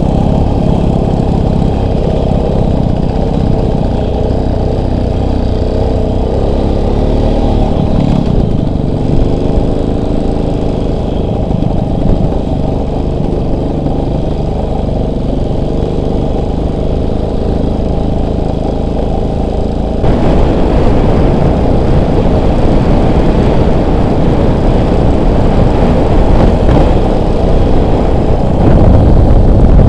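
Motorcycle engine running under way, its pitch rising and falling with the throttle. About two-thirds of the way through it gets louder and rougher.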